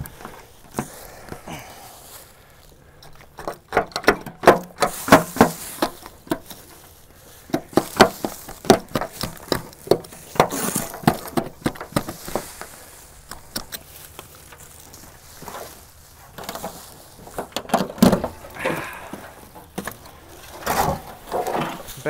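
Rusted sheet-metal car fender being pried and pulled loose from dirt and leaf litter: irregular clanks, scrapes and crunches in a few spells, with quieter stretches between.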